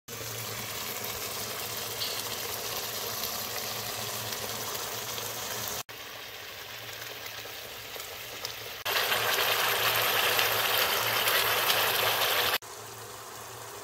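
Thick tomato masala bubbling and sizzling in hot oil in a nonstick karahi, in a few short clips. It is louder from about nine seconds in until a cut near the end.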